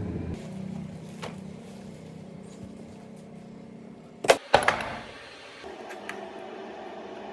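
Two sharp knocks about a quarter of a second apart, over a faint background hum that grows steadier afterwards.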